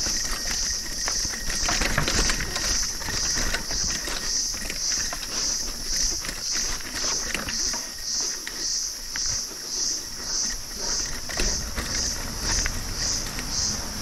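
An insect calling in a high-pitched pulse about twice a second, with the clatter and rattle of a Polygon Premium 5 mountain bike rolling over a rough stone trail and a low rumble beneath.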